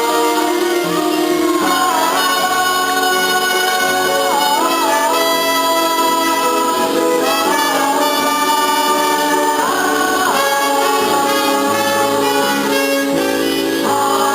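Singers performing a song from a stage musical over instrumental accompaniment, with long held notes that waver slightly.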